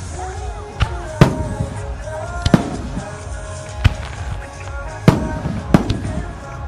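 Aerial firework shells bursting overhead with about half a dozen sharp booms, irregularly spaced, two of them almost together near the middle. Music plays continuously underneath.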